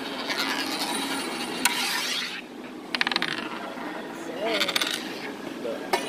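A coin on a hard tabletop: a single click, then twice a quick run of rapid rattling clicks, about three seconds in and again near five seconds, as the coin clatters down flat.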